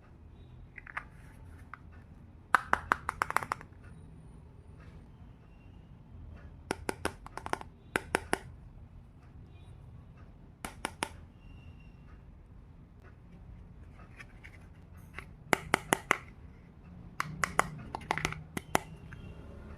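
Small pieces of a miniature toy kitchen set being handled: short runs of sharp clicks and taps as the tiny parts are picked up and set down, in several separate bursts.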